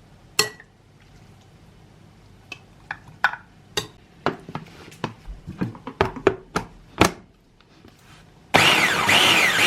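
A series of light knocks and taps, then near the end a small electric hand-blender motor with its chopper attachment starts abruptly and runs steadily with a high whine, pureeing roasted pumpkin.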